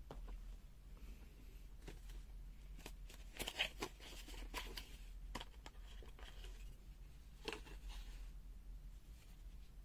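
Faint scattered clicks and handling noises of a digital multimeter and its test leads being set up, busiest a few seconds in, over a low steady hum.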